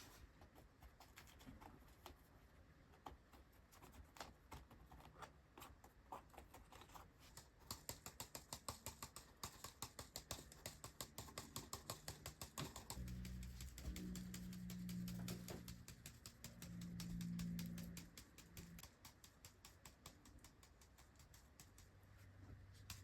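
Vermiculite being sprinkled over seed-starting trays: faint, rapid light ticking, about five ticks a second, densest through the middle. A low hum joins briefly just past the middle.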